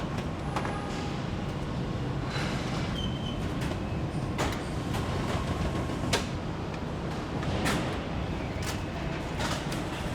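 Car factory floor ambience: a steady low machinery hum with irregular sharp clicks and knocks of tools and parts.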